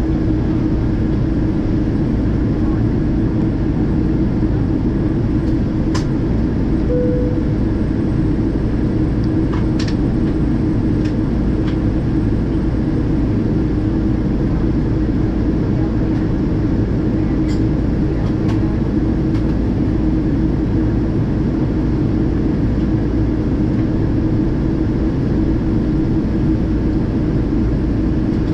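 Steady cabin drone of a Boeing 777-200ER in descent, heard at a window seat over the wing: the Rolls-Royce Trent engines and the rush of air past the fuselage, with a steady low hum. A few faint clicks and one short faint tone sound in the cabin.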